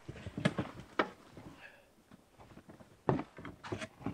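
Camping gear being handled and lifted out of a side-by-side UTV's cargo bed: several separate sharp knocks and clunks, with rustling between them.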